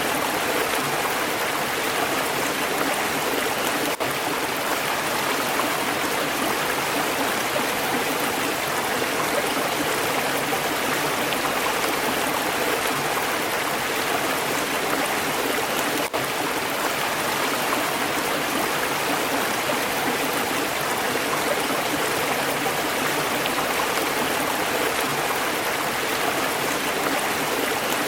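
Stream water flowing steadily, a constant rushing and babbling.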